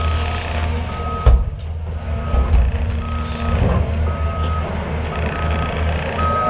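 A backup alarm beeps about once a second, each beep about half a second long, over the steady low running of heavy diesel machinery. A heavy thump comes a little over a second in as the excavator drops a bucket of coal into the dump truck's bed.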